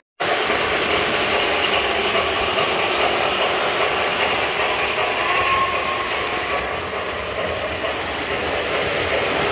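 O scale model trains running on the layout track: a steady mechanical rattle and gear whir of wheels and motors. The sound drops out for a moment right at the start.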